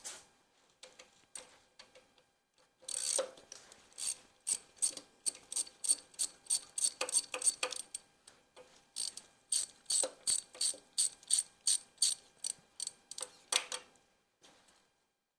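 Hand socket ratchet wrench clicking as it is swung back and forth on a bolt, about three to four clicks a second, in two long runs with a short pause between.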